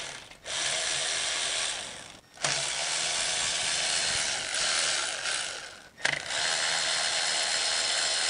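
Cordless electric ratchet motor running in three runs of a few seconds each, with short pauses between them, spinning oil pan bolts out.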